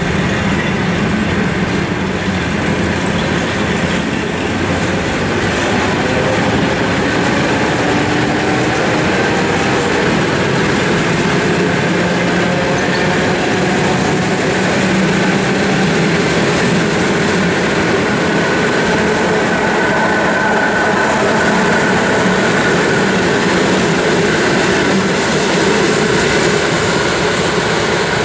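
ED9MK electric multiple unit pulling out of a station and accelerating away: a steady rumble and clatter of wheels on the rails, with a faint whine from the traction motors rising in pitch as it gathers speed.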